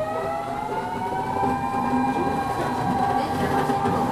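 Kyoto Municipal Subway Tozai Line 50 series train heard from inside the car, its electric motor whine rising in pitch as it gathers speed, then levelling off about two seconds in, over the steady rumble of running.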